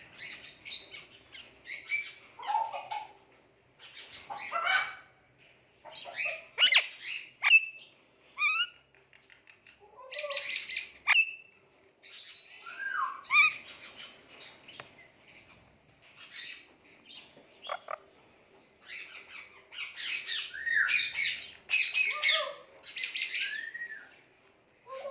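Indian ringneck parrot calling in a string of short squawks and chirps, harsh scratchy squawks mixed with whistled notes that slide up and down in pitch, with brief pauses between.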